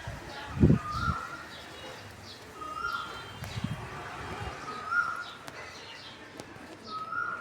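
A cuckoo calling in the background: a short, rising whistled note repeated about every two seconds. Pigeons coo low near the start and again about halfway, with small birds chirping faintly.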